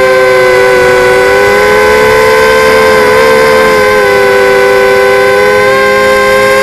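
Multirotor drone's motors and propellers whining close to the onboard microphone: several steady tones that bend slightly up and down in pitch as the motors change speed, most noticeably in the middle.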